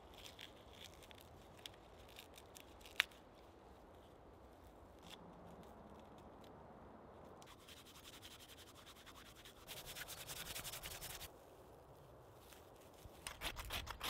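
Dry, fibrous tree bark being peeled off a trunk in strips and then rubbed hard between the palms to fluff it into tinder, a faint dry scraping and rustling that peaks for about a second and a half past the middle. Near the end, a rapid series of rasping scrapes as a ferro rod is struck to throw sparks onto the shredded bark.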